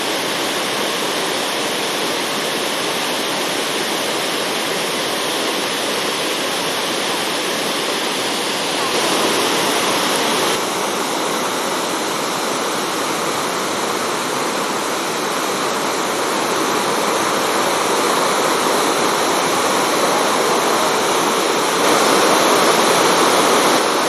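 Thi Lo Su waterfall: a loud, steady rush of falling water. The rush shifts in tone abruptly about 9, 11 and 22 seconds in.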